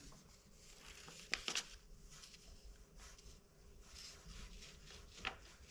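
Faint rustle of a sheet of paper being slid and handled under a 3D printer's nozzle for the paper-gap test of manual bed levelling, with a few light clicks about a second and a half in and again near the end.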